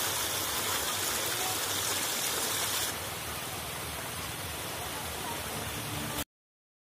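Floodwater rushing and churning as it pours over a submerged bank, a steady hiss of moving water. About three seconds in it drops to a quieter flowing sound, and it cuts off abruptly near the end.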